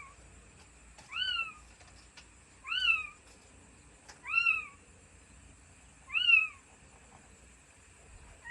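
A cat meowing over and over, four short meows that each rise and then fall in pitch, about one every one and a half seconds.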